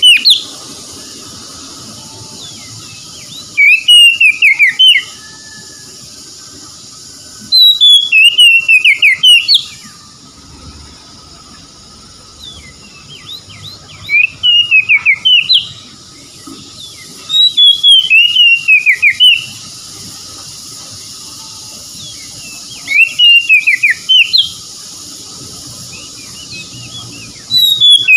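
Oriental magpie-robin singing: about six loud phrases of quick whistled notes, each run sliding downward in pitch, one to two seconds long and several seconds apart.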